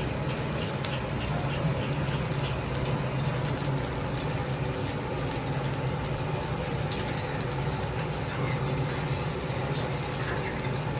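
Thick wagyu steak searing on a teppanyaki griddle: its fat sizzles and crackles steadily around the meat, over a steady low hum.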